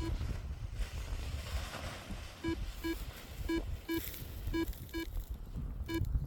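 Paragliding variometer giving its climb tone: short beeps of one steady pitch in pairs, a pair about every second, showing the glider is rising. Wind rumbles on the microphone underneath.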